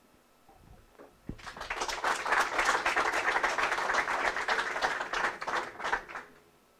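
Audience applause, starting about a second and a half in and dying away near the end.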